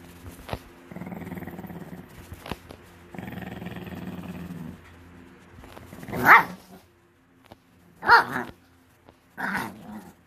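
Angry Pekingese growling twice in long low growls, then giving three sharp, loud barks a second or two apart. The dog is angry at being teased while its breakfast is held back.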